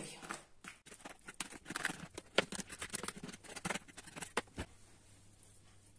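Metal fork scraping and tapping against the inside of a plastic colander, working soft cooked pumpkin out onto a floured counter. The irregular clicks and pats die away about four and a half seconds in.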